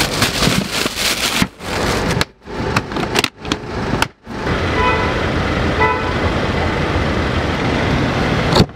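A plastic bag rustling as it is lowered into a cooler, then short handling sounds in quick cuts. After that comes steady street and traffic noise with two short beeps about a second apart.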